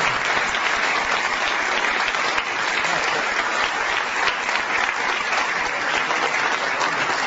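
Steady applause from a crowd, many hands clapping.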